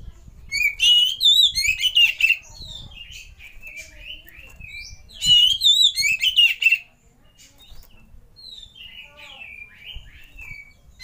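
Oriental magpie-robin (kacer) singing: two loud bursts of quick, varied whistled notes, the first right at the start and the second about five seconds in, with softer chirps and twitters between them and toward the end.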